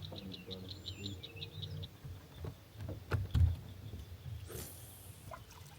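A frog calling in a rapid, high, clicking trill that fades out about two seconds in. A few knocks and a low thump follow about three seconds in, and a short hiss comes just before five seconds.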